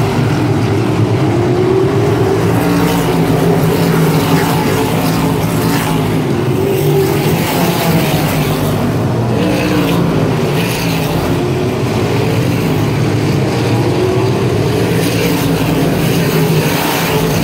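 A field of sprint cars racing around the oval, many V8 engines running loud and continuous together, the pitch rising and falling as cars pass and go through the turns.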